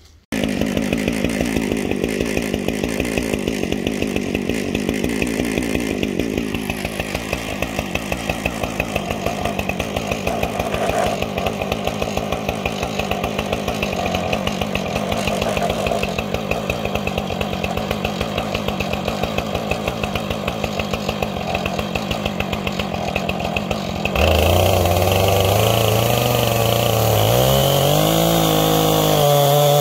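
Husqvarna 460 Rancher two-stroke chainsaw, mounted in an Alaskan chainsaw mill, running at a steady low speed. About 24 s in it revs up to full throttle, and its pitch wavers as the bar starts into the cedar log.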